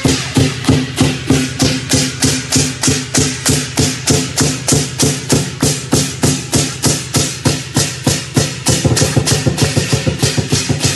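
Lion dance percussion: a big Chinese drum beating with clashing cymbals in an even rhythm of about three to four strokes a second. Near the end the beat turns quicker and denser.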